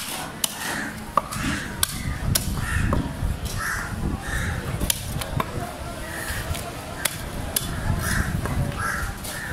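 A heavy cleaver chopping through a skipjack tuna on a wooden block, making sharp knocks at irregular intervals, several in a row. Birds cawing repeatedly, and a hubbub of background noise, continue throughout.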